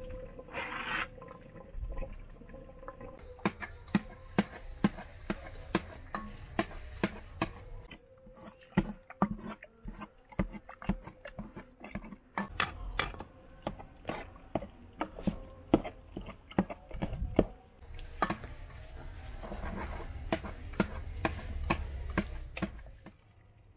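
A hand masher pounding the cooked lamb and potatoes of abgoosht into a paste in a metal pot: repeated irregular thuds and sharp knocks, a stroke or two a second, as the masher hits the pot.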